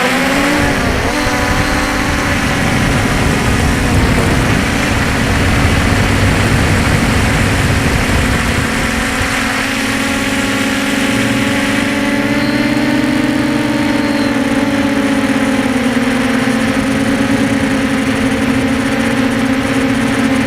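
Quadcopter drone's propellers and motors humming steadily, the pitch rising just at the start and then holding with a slight waver, over a low rumble.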